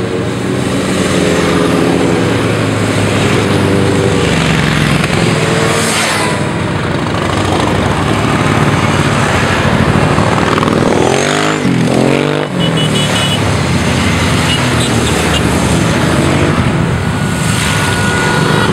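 A long column of motorcycles riding past one after another, their engines running in a continuous, overlapping drone. Partway through, one engine revs up and back down.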